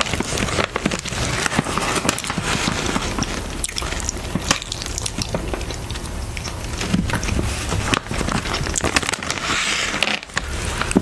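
Close-miked crunching and chewing of Harvest Snaps baked bean and pea snack crisps, a dense crackle of small clicks, mixed with the crinkle of the foil-lined snack bag as it is handled.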